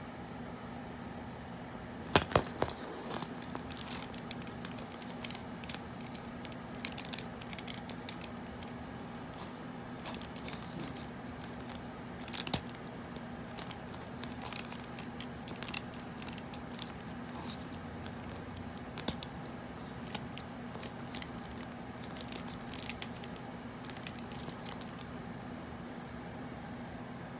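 Hands handling and posing a plastic Transformers Hot Rod action figure: scattered sharp plastic clicks and knocks, with a cluster of the loudest ones about two seconds in. A steady low hum with hiss runs underneath.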